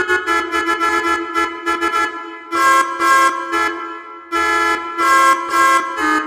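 Telolet multi-tone musical bus horn playing a tune. It starts with a quick run of short staccato notes, then goes on to longer held chord-like blasts with short gaps between them.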